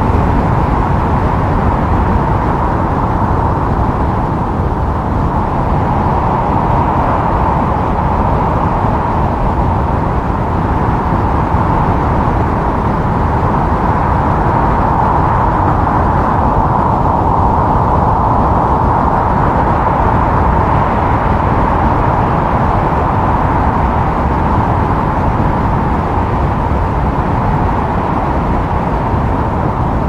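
Wind blowing steadily: a constant loud rush with a whistling tone that slowly swells and eases in strength.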